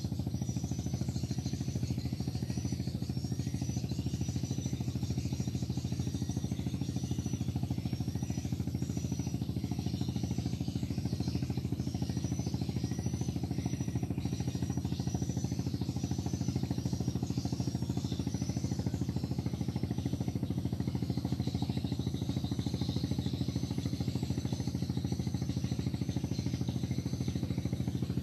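A small engine running steadily at an even speed, with a short high chirp repeating about once a second over it.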